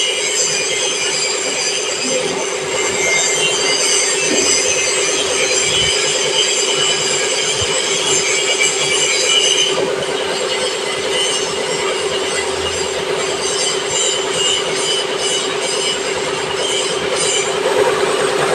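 Milling machine cutting a workpiece: a steady running tone under a high-pitched squeal from the cutter, the squeal changing about ten seconds in.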